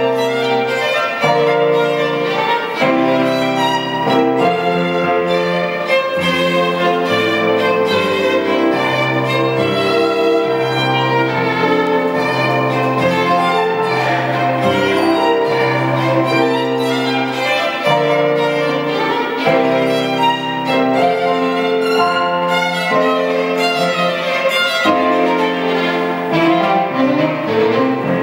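Violin and electronic keyboard playing live together: the violin carries the melody over held keyboard chords and low bass notes that change every second or two.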